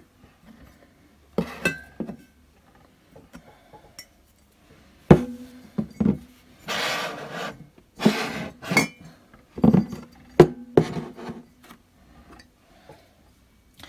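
Glazed ceramic 3D character mugs being set down and shuffled along a shelf: a series of separate clinks and knocks, with a short scraping slide about seven seconds in.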